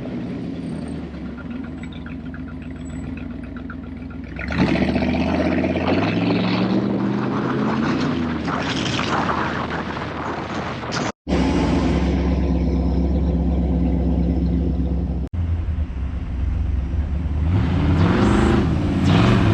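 1954 Chevrolet Delray's engine, newly fitted with FiTech throttle-body fuel injection, running under way. It revs up and down about four seconds in and again near the end, and the sound cuts out briefly twice in between.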